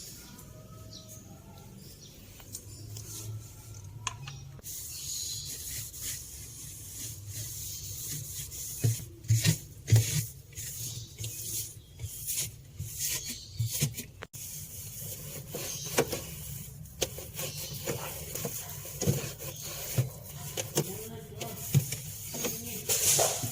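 Cleaning sounds while scrubbing out a fridge: rubbing and scrubbing with a steady hiss, broken by scattered knocks and clatter of handled items.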